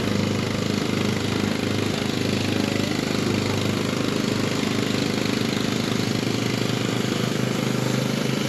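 Small engine of a mini jeep running steadily as it drives along a paved road.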